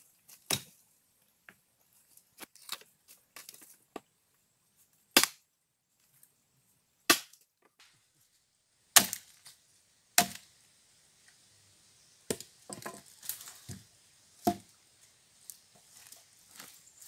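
Chopping blows of a long-handled blade into a log, splitting it lengthwise. About seven sharp strikes come a second or two apart, with smaller cracks of the wood between them.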